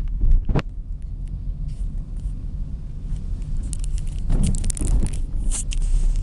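Steady low rumble of a vehicle in motion, with a few sharp knocks in the first second and bursts of rustling, clicking noise in the second half.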